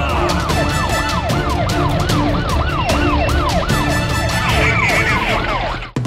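Emergency-vehicle siren yelping, a quick rise and fall in pitch about three times a second, over background music; it cuts off just before the end.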